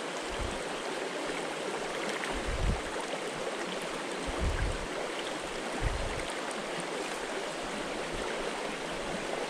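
Shallow creek running over rocks and riffles, a steady rushing babble, with a few brief low bumps about half a second, two and a half, four and a half and six seconds in.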